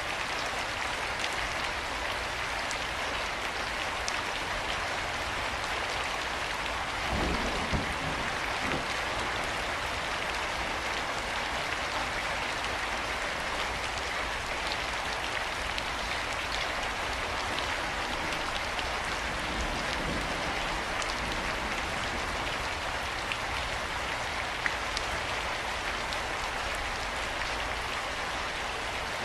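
Steady rain falling, an even hiss with scattered individual drop ticks. About seven seconds in there is a brief low rumble.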